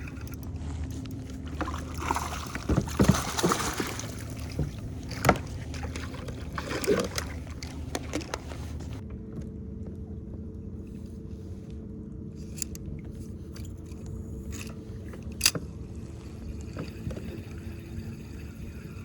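Knocks and scrapes of gear being handled on a fishing kayak, busiest in the first half, followed by a steady low hum with a few sharp clicks.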